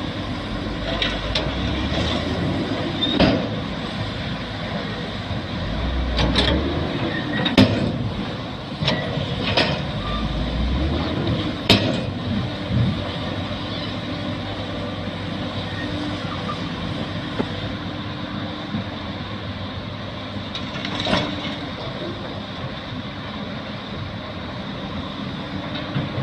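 Hydraulic excavator working: the diesel engine drones steadily and swells and eases three times in the first half as the hydraulics take load. Sharp knocks come now and then, loudest about twelve seconds in.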